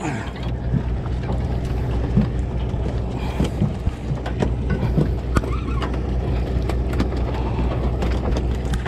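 Boat engine running with a steady low hum, with scattered knocks and clicks on top.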